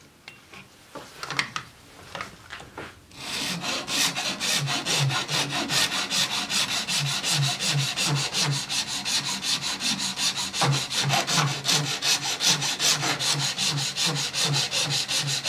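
Flat hand file rasping back and forth over the clear plastic base of a trim router, filing down the raised lug so the edge-guide clamp screw can grip the guide plate. After a few small handling clicks, the filing starts about three seconds in as a steady run of quick, even strokes.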